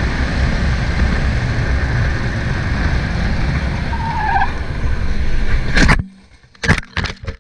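Motorcycle riding at speed, its engine and road noise steady, with a short squeal about four seconds in, then a loud crash as it collides with an ambulance pulling out across its path. The noise cuts off abruptly after the impact, followed by a few sharp knocks.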